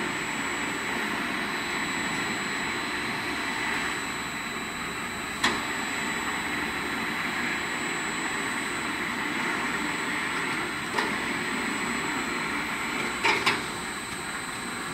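Drive motors and gearboxes of a 150-ton welding rotator running as its travelling trolley rolls along its rails and its rollers turn: a steady mechanical hum with a thin high whine. A few sharp clicks break in, two close together near the end.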